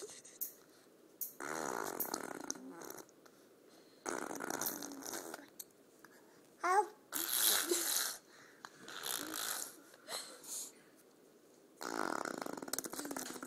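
Baby blowing raspberries against skin, making fart-like buzzing noises in about five bursts of a second or two each, with a short rising squeal about seven seconds in.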